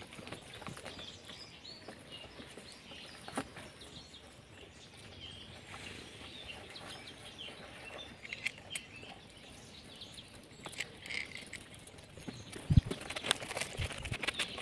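Small birds chirping here and there, with rustling and crackling of dry leaves and gravel as goats move about close by. A single heavy thump comes near the end.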